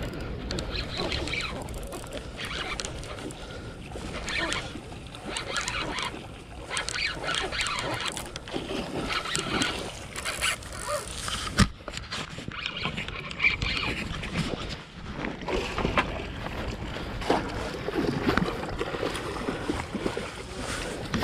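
Irregular water splashing as a hooked chum salmon is reeled in to the wall on a spinning reel, over a steady low rumble of wind on the microphone, with one sharp knock about halfway through.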